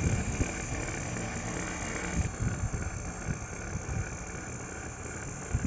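Refrigeration vacuum pump running steadily while it evacuates an air conditioner's outdoor unit, with wind buffeting the microphone. About two seconds in, the pump's sound turns quieter and duller.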